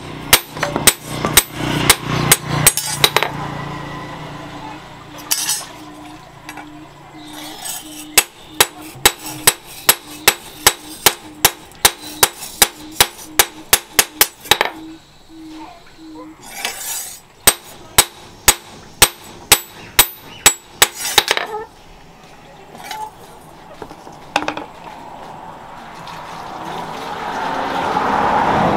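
Hand hammer striking a steel sword blade, cut from a motorcycle disc brake rotor, on a small anvil: runs of sharp metallic blows, about three a second, with short pauses between runs. A hiss swells near the end.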